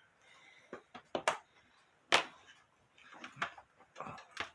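Side cutters clicking and tapping against a clock's hands and arbor as they are pried off the movement: about nine sharp, irregularly spaced metal clicks, the loudest just after two seconds in.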